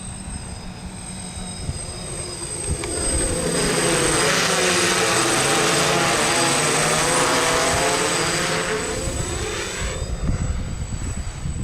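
DJI F550 hexacopter, its motors running on bad bearings, flying past: the propeller and motor noise swells for a few seconds, then fades away. Gusty wind buffets the microphone throughout.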